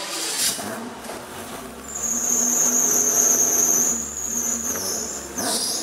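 Ferrari F40's twin-turbo V8 running while the car stands still, with a steady high-pitched whine over it from about two seconds in.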